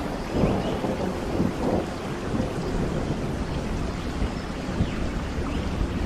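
Rain falling steadily, with scattered drops spattering and a continuous low rumble of thunder.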